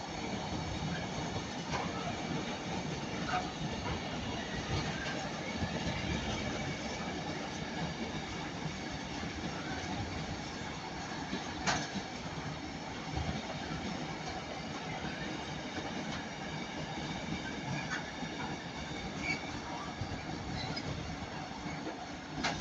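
A train running past on the line: a steady rumble of wheels on rail, with a few sharp clicks and a faint high squeal from the wheels.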